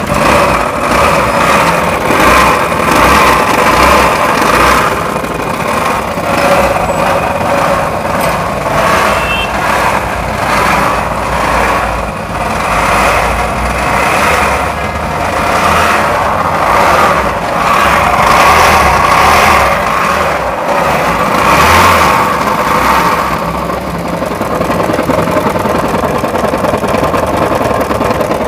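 Aprilia 150 cc scooter engine running with an abnormal mechanical noise, the engine fault that has called for a full engine rebuild.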